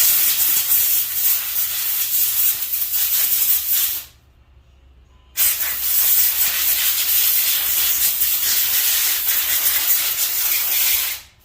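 Compressed air blowing grinder dust off welded steel: two long, loud hissing blasts, the first about four seconds, then a short pause and a second one of nearly six seconds.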